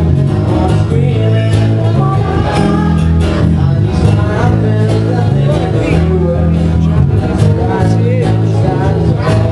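Live band playing loudly: a singer at the microphone over electric guitars and bass guitar, with a steady beat.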